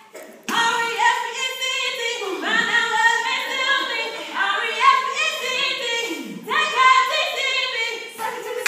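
Teenage girls singing a cappella as a group: sung phrases of melody over a steady held note underneath.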